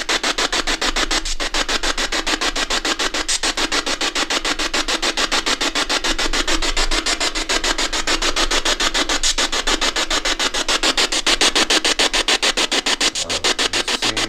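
Ghost box (spirit box) radio sweeping rapidly through stations: a steady, fast, even chopping of static and radio noise, several pulses a second.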